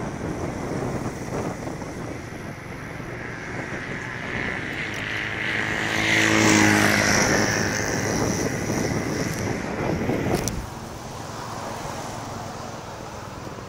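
Steady road and wind noise from riding along with the cyclists, with a motor vehicle passing by: its sound swells to the loudest point about six seconds in, drops in pitch as it goes by, and falls away sharply about ten seconds in.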